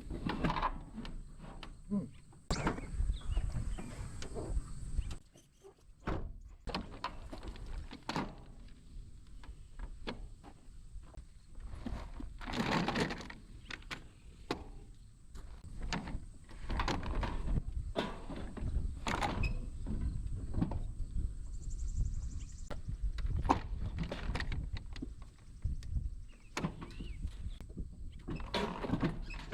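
Irregular knocks and clunks of hand work on a snowmobile, parts and tools being handled, over a faint steady high-pitched hiss.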